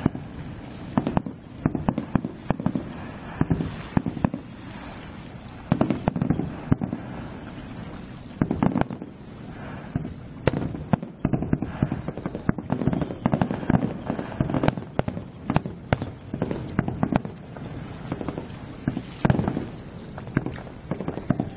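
Aerial firework shells bursting, a steady run of irregular bangs and booms, some coming in quick clusters.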